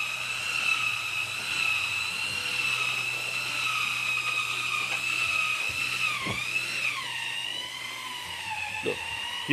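Cordless drill running under load on a car's roof: a steady high whine whose pitch dips about six seconds in and then settles lower.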